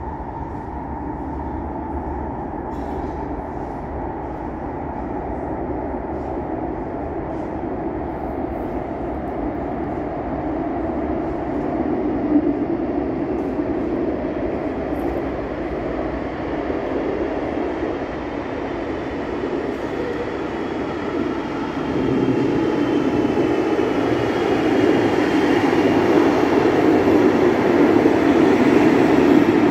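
Cologne Stadtbahn light-rail train approaching through the tunnel and pulling into an underground station, a steady rumble that grows louder over the last several seconds, with a faint whine above it as the train runs in along the platform.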